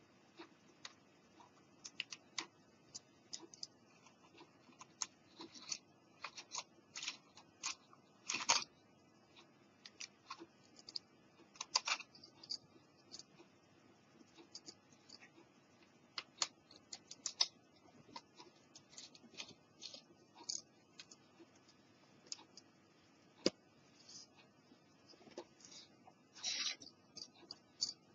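Faint, irregular scratching and clicking of a thin tool worked against the plastic casing and jack area of a Panasonic portable cassette player, with a few sharper scrapes.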